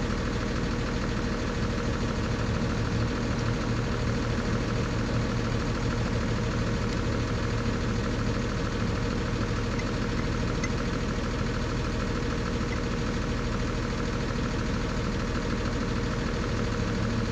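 An engine idling steadily, with no change in speed.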